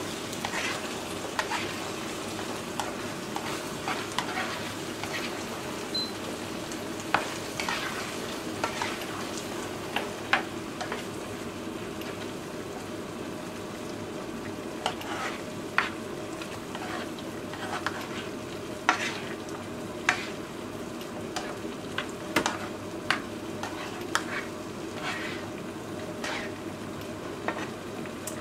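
Ground-meat tomato sauce sizzling in a frying pan while a plastic spatula stirs it, scraping and tapping against the pan at irregular moments.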